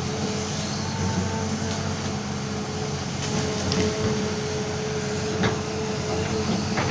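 Amphibious excavator's engine running steadily with a held hydraulic whine, and a few short knocks in the second half.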